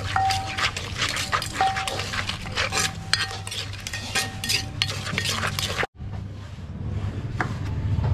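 Metal spoon scraping and clinking against a clay mortar, with knocks of a wooden pestle, as a salad is pounded and turned. It is a quick, dense run of clicks with short ringing clinks that cuts off abruptly about six seconds in. A few lighter knocks follow over a low hum.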